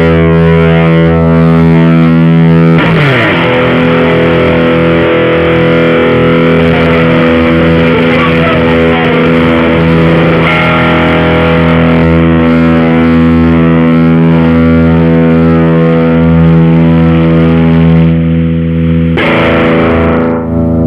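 Electric guitar played through a JOYO Deluxe Crunch distortion pedal: loud sustained overdriven chords, with a quick downward slide about three seconds in and a fresh chord struck near the end.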